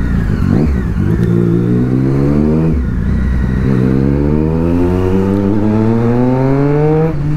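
Triumph Street Triple's inline three-cylinder engine pulling hard under acceleration, its revs rising, dropping briefly just under 3 s in as it shifts up, then rising again through the next gear before falling off near the end.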